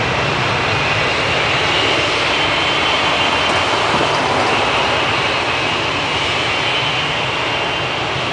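Boeing 777-300ER's GE90 turbofan engines running steadily: a loud even rush of jet noise with a high whine over it.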